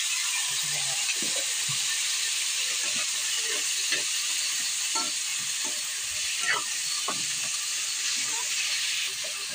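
Cubed squash sizzling steadily in hot oil in a metal pan, stirred with a metal spatula that scrapes and clinks against the pan now and then.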